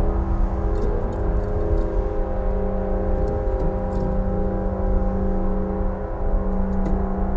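Ambient drone: several steady held tones over a low rumble, with faint scattered ticks.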